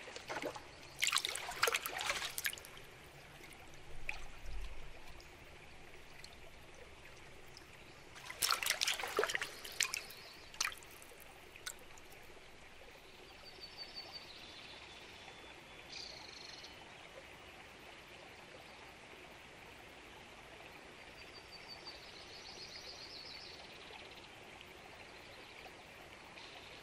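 River water trickling and splashing in two short spells, one about a second in and one around nine seconds in, over a faint steady hiss. A few faint high chirps come later.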